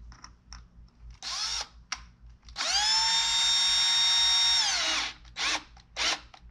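Cordless drill driving a screw into a wooden base: a short spin-up, then a steady whine of about two seconds that winds down, followed by several short bursts as the screw is driven home.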